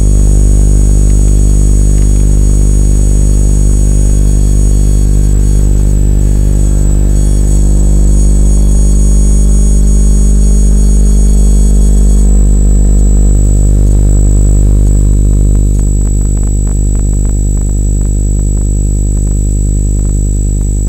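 Electromagnetic field detector turning electrical fields into sound: a loud, steady electrical buzz with a high whine above it. About twelve seconds in the buzz shifts, and near the end rapid clicks crackle through it.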